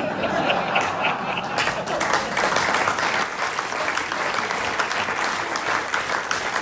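Audience applauding: many hands clapping, the clapping growing fuller about a second and a half in.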